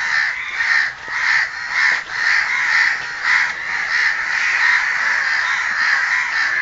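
Crows cawing in a rapid, almost unbroken run, about two caws a second.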